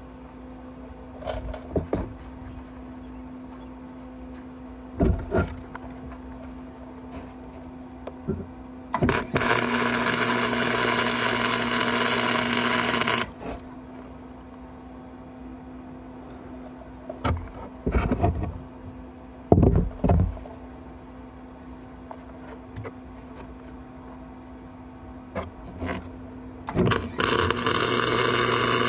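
Electric welding arc crackling in two runs, about four seconds starting some nine seconds in and again from near the end. Between them come scattered sharp knocks and clanks of metal being handled, over a steady faint hum.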